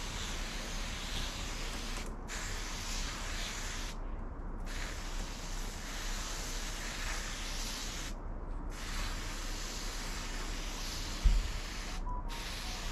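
Garden-hose watering lance spraying water in a steady hiss onto pots of seedlings. The spray cuts off briefly four times. A single short thump comes near the end.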